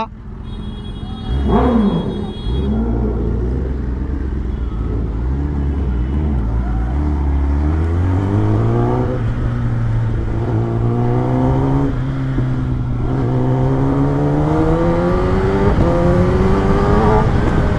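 Superbike engine accelerating through the gears: a low, even rumble for the first several seconds, then a pitch that climbs steadily, dipping briefly at each of about four upshifts. A short rising-and-falling tone sounds about two seconds in.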